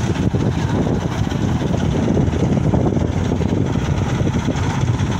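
Caterpillar wheel loader's diesel engine running steadily.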